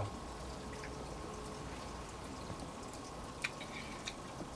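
Faint water dripping and trickling, with a few sharp ticks over a steady quiet background.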